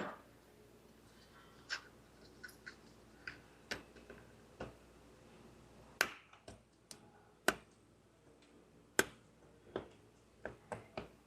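Plastic wiring-harness connectors and clips being handled and worked free by hand on an engine: scattered sharp clicks and taps, a dozen or so, the loudest three coming about a second and a half apart from about six seconds in.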